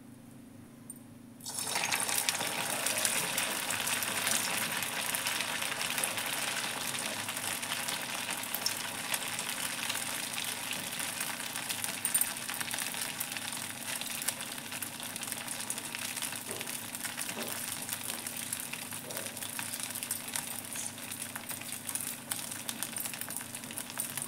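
Hot oil in a kadai deep-frying a stuffed bread roll: the sizzling and crackling starts suddenly about a second and a half in as the roll goes into the oil, then keeps up steadily with fine popping.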